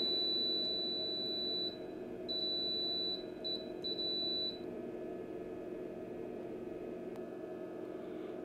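Digital multimeter's continuity beeper sounding as the probes touch the board: one long high beep, then three shorter broken beeps, which signal a short circuit. A faint steady hum runs underneath.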